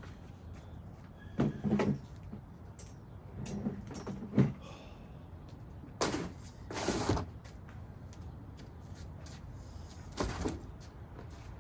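Several separate clunks and knocks in four groups, the loudest about six to seven seconds in.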